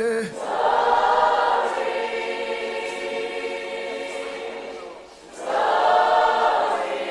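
A group of voices singing together, choir-like, in two long held phrases; the second starts about five and a half seconds in.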